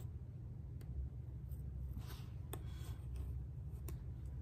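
Faint scratching and small ticks of tweezers picking and peeling a vinyl stencil off a painted wooden sign, a few scattered strokes over a steady low room hum.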